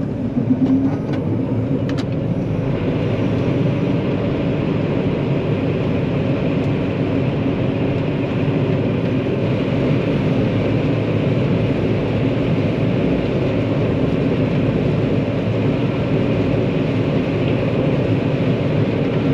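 John Deere 9500 combine driving along a road, heard from inside its cab: a steady engine and drive drone, with a short rise in pitch and a few clicks in the first couple of seconds.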